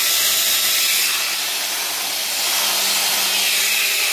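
Electric grinder running steadily on the metal of the vice while stripping it, a loud hissing noise that eases a little for about a second and a half, about one second in.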